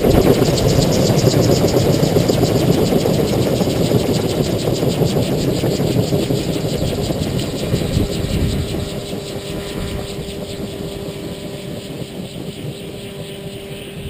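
Gyroplane rotor spinning down with the engine dead, just after a forced landing: a rhythmic whooshing rush that fades steadily as the blades slow.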